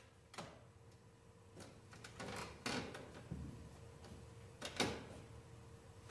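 Quiet hall with a faint steady hum, broken by a handful of soft knocks and rustles, the loudest nearly five seconds in; no music is playing yet.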